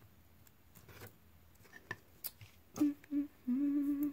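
A woman humming: a few short notes about three seconds in, then one longer held note. Before it, faint clicks and taps from wooden craft sticks being handled on the table.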